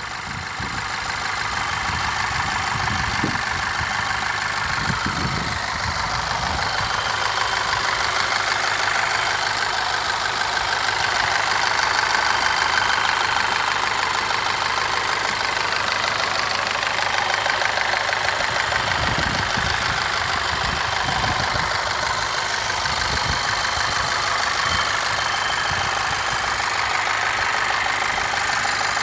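Volkswagen 2.0 TSI EA888 turbocharged four-cylinder petrol engine idling warm, with a strange knock that is still there after a new timing chain and a modified chain tensioner were fitted.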